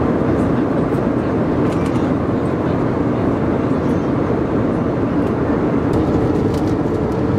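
Steady cabin noise of an Airbus A320 in cruise: the even drone of the engines and airflow, heavy in the low and middle range, with a few faint small clicks.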